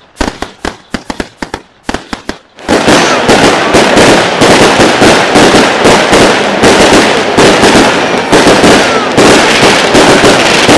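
Fireworks going off: separate sharp bangs at first, then, nearly three seconds in, a very loud, dense, unbroken barrage of explosions from shells bursting one on top of another.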